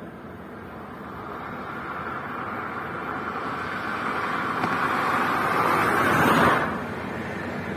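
A car approaching and driving past, its engine and tyre noise growing steadily louder, peaking about six and a half seconds in, then dropping away sharply as it passes.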